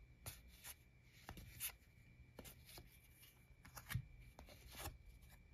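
Faint handling of football trading cards: soft clicks and slides of card stock as the cards are picked up and flipped through, the loudest tap about four seconds in.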